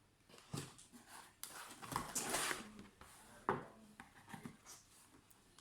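Handling of a laptop on the bench: a few sharp clicks and taps, with a short hissing rub about two seconds in.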